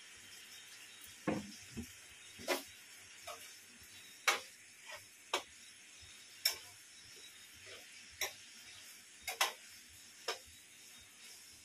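Irregular clinks and taps of kitchenware: dishes and utensils knocked together about a dozen times, some with a short ring, over a steady low hiss.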